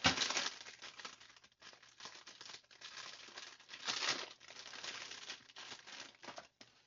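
Rustling and crinkling as a bundle of fabric scraps is handled and sorted through, louder right at the start and again about four seconds in.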